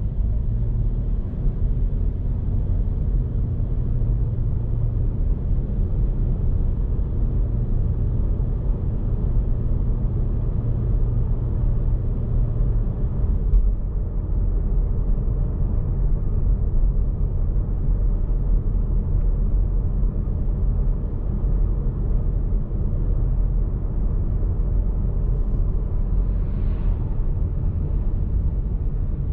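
Steady low rumble of a car driving, engine and road noise heard from inside the cabin. A low engine hum within it drops away about halfway through.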